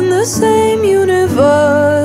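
Ballad with a singer holding long notes that slide between pitches, over soft backing music.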